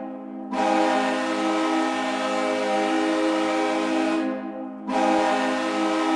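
New York Islanders' NHL goal horn sounding in long, steady blasts, with short breaks about half a second in and about four and a half seconds in.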